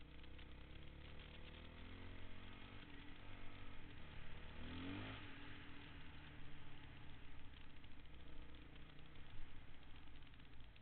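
Honda dirt bike engine running while riding a trail, its pitch climbing over the first few seconds, then a quick sharp rev about halfway through before it settles to a steadier note.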